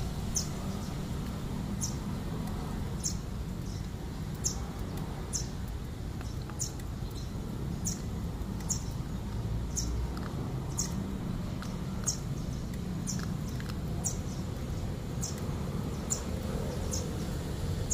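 A bird calling with a short high chirp, repeated about once or twice a second, over a steady low background rumble.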